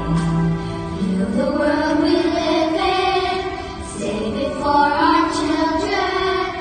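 Live concert music: a woman and a group of girls singing a slow song in long, held notes, with an orchestra accompanying.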